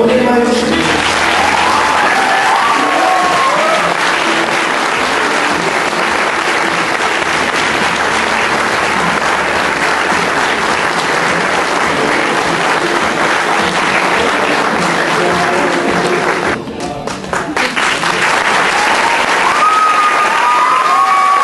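Audience applauding in a school hall, with cheers rising over the clapping near the start and again near the end. The applause thins briefly about 17 seconds in, then swells again as the performers bow.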